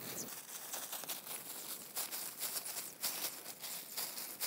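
Irregular soft crinkling and rustling of a disposable plastic glove as hands press minced meat and eggplant onto a metal skewer.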